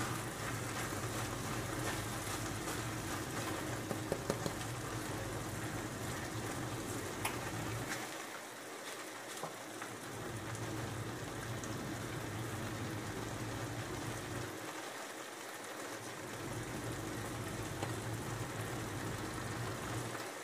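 Bulgur and vegetables sizzling in a frying pan as a steady hiss, with a few light clicks of a wooden spatula stirring against the pan.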